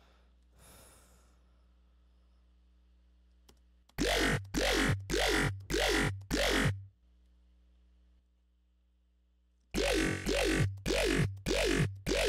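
Dubstep bass patch from the Xfer Serum software synthesizer, played as two runs of five short, loud notes. Each note's pitch falls quickly over a heavy sub-bass layer.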